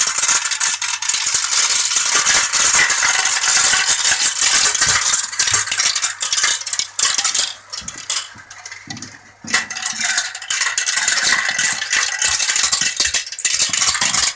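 Many marbles rattling and clicking down a plastic Galt marble run in a dense stream of clicks that thins out for a moment about eight seconds in, then picks up again.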